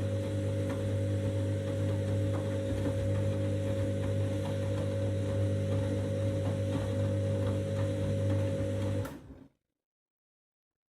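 Candy washing machine running in the main wash of a 90-degree whites programme: a steady motor hum with faint ticking and sloshing. It cuts off abruptly about nine seconds in, leaving dead silence.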